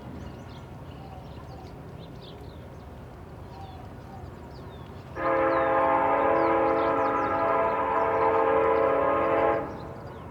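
Train air horn sounding one long, steady blast of several tones at once. It starts about halfway in, lasts about four and a half seconds and cuts off sharply, over a low steady rumble.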